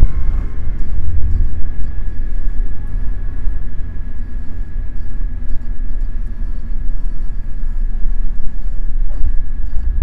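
Steady low drone of a Beechcraft Twin Bonanza's two piston engines, heard from inside the cockpit.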